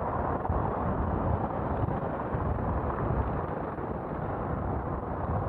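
Wind buffeting the microphone of a bicycle-mounted action camera while riding, a steady low rushing noise with road and traffic sound beneath it.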